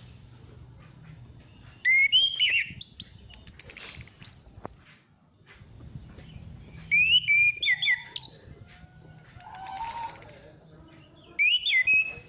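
Female orange-headed thrush singing in four quick bursts of varied, rising-and-falling whistles mixed with high thin notes that slide downward. It is the female's song used as a lure to set male thrushes singing.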